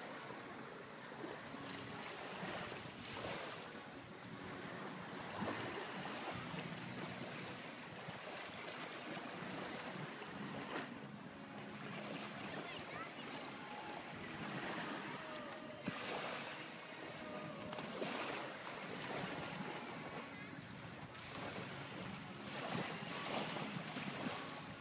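Small waves washing onto a sandy beach, the surf noise swelling and fading every few seconds.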